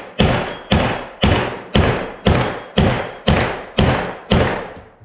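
Dead blow hammer striking a steel wheel-bearing punch tool, nine steady blows about two a second, each ringing briefly, driving a Polaris 44 mm wheel bearing into the knuckle's bearing carrier.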